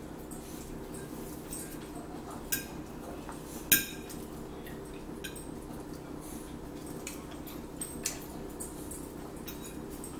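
Scattered clinks of forks against plates during a meal, the loudest about three and a half seconds in and a pair of lighter ones near the end, over a steady low hum.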